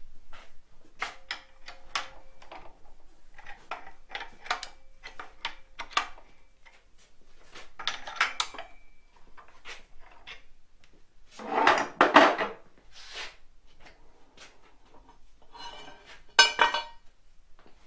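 Steel parts of a lathe set-up knocking and clinking as a metal piece is worked loose and taken out, some taps ringing briefly. A louder scraping clank comes about twelve seconds in and another near the end.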